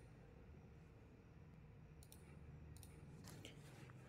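A few faint computer mouse clicks, some in quick pairs, starting about halfway through, over quiet room tone.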